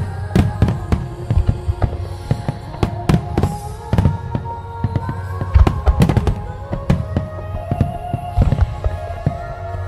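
Aerial firework shells bursting in quick succession, many sharp bangs a second, over music with long held notes.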